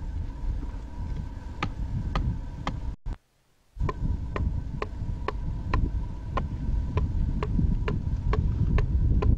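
Adze blade chopping into the wood of a carved mask as its inside is hollowed out, sharp strokes about two to three a second over a steady low rumble and faint hum. The sound cuts out for under a second about three seconds in, then the strokes resume.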